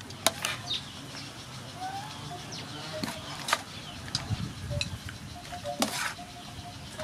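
Sharp clicks and scrapes of a utensil against a metal mixing bowl and plate as noodle salad is scooped and served, with short bird calls in the background.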